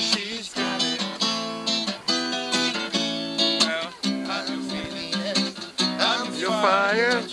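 Acoustic guitar strummed in chords, the strokes steady and repeated. Near the end a voice sings a long wavering line over the guitar.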